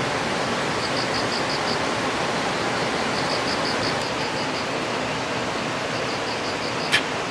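Steady rushing outdoor noise, even and unbroken, with short runs of high chirps that repeat every second or two. A single sharp click sounds near the end.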